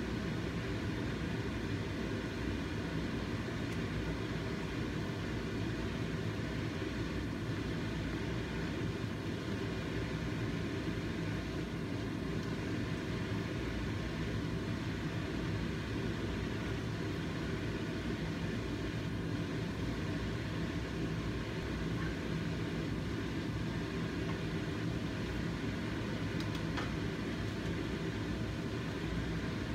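Steady low mechanical hum and rumble that does not change.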